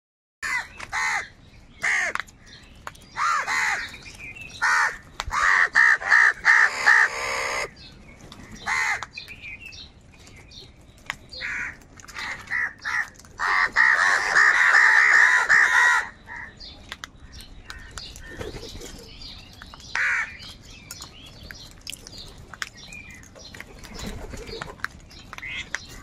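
A flock of house crows cawing, many harsh calls overlapping in two loud spells in the first two-thirds, then thinning to scattered calls.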